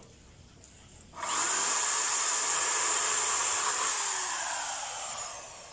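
Corded electric hand drill boring into a wooden plank: the motor starts abruptly about a second in and runs with a steady high whine, then winds down near the end, its pitch falling.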